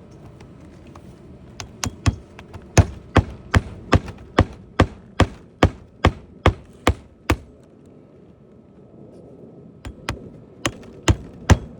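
Hammer blows on a cedar roof shake, working it into place: a steady run of sharp strikes at about two and a half a second, a pause, then a few more strikes near the end.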